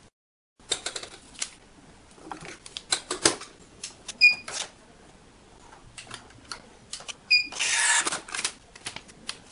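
MUNBYN ITPP080 80mm thermal receipt printer being loaded and run: clicks and knocks as the paper roll goes in and the lid is snapped shut, two short high beeps, then about a second of the printer's fast whirring as it feeds out a printed receipt, followed by a few clicks.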